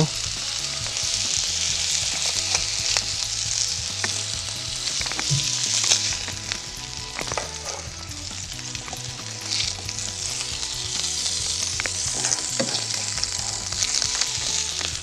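Fish fillets sizzling in a frying pan over high heat, with a few short clicks and scrapes of a spatula against the pan as the pieces are lifted out.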